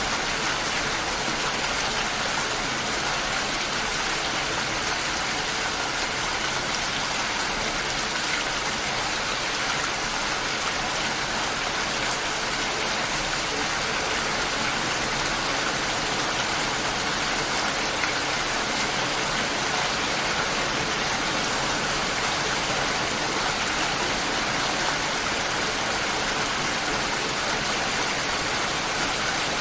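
Steady light rain falling, an even hiss with no thunder and no music.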